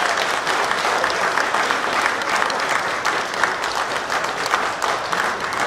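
Audience applauding: many people clapping at once in a steady, dense patter.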